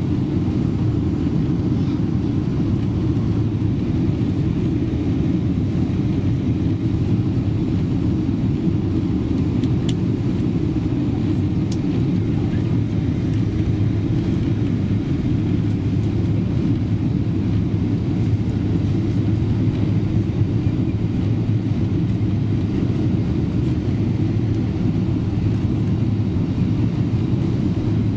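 Steady low rumble of a Boeing 777 cabin in flight on approach, engine and airflow noise heard from inside at a window seat.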